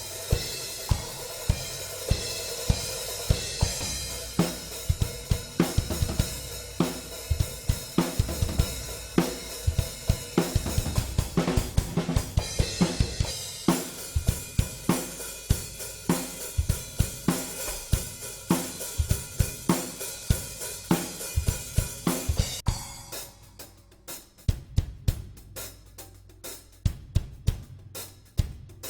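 Drum kit played in a steady groove with Paiste PST5 and PST7 cymbals ringing over snare and bass drum hits. About three-quarters of the way through, the cymbal wash stops abruptly and only short, dry drum and hi-hat strokes carry on.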